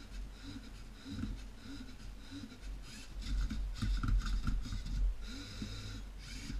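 Lego Mindstorms NXT servo motors whirring as the Rubik's-cube-solving robot works, in a pattern that repeats about twice a second. From about three to five seconds in comes a louder clatter of plastic parts as the flipper arm tips the cube over.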